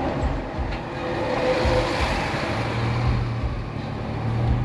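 Car driving on a wet road, heard from inside the cabin: a steady low engine hum under tyre and road noise that swells about two seconds in.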